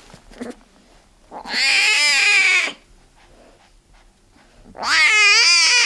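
Young tiger cub crying: two loud calls, each a little over a second long, the second one wavering up and down in pitch.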